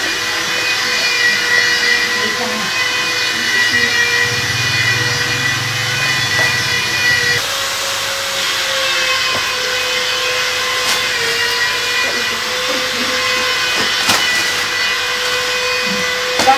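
A small motor running with a steady whine over a hiss, its pitch shifting slightly about halfway through, with a sharp click near the end.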